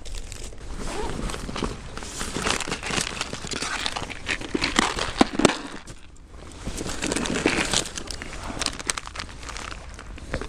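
Rustling and crinkling of a fabric backpack and plastic-packaged soft fishing lures being rummaged through by hand, with scattered light clicks and knocks of plastic tackle boxes.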